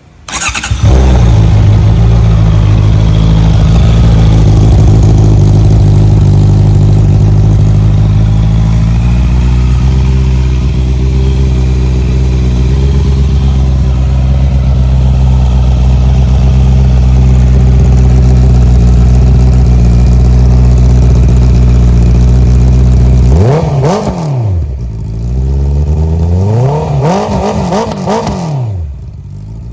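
Honda CBR650R inline-four engine through an Akrapovic exhaust: the engine sound sets in abruptly, runs at a steady idle, then is revved twice near the end, each rev rising and falling back, before dropping quieter.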